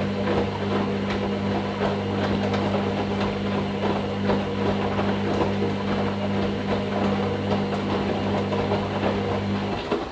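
Hoover Nextra HNL662 washing machine running: a steady motor hum under a busy rattle from the drum, which cuts off abruptly near the end.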